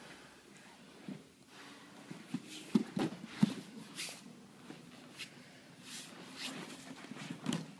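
Two grapplers in cotton jiu-jitsu gis scrambling on foam mats: thumps of bodies, hands and feet on the mat, the loudest cluster about three seconds in, with hard breaths and rustling of gi cloth between them.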